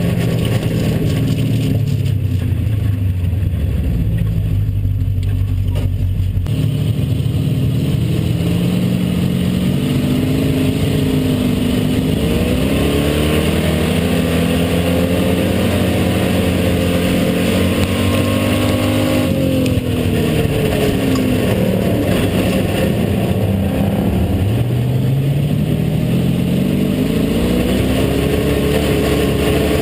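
Hobby stock race car engine heard from inside the cockpit, running loud and fairly even for the first few seconds, then revving up and easing off in long swells several seconds apart.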